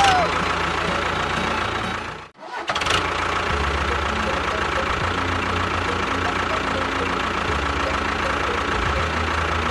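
A small motor running steadily, with a steady high whine and a low pulsing hum. The sound cuts out briefly about two seconds in, then resumes.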